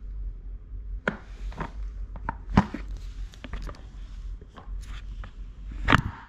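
Knocks and clicks of plastic and metal toddler-trike parts being handled during assembly, with two louder knocks, about two and a half seconds in and near the end.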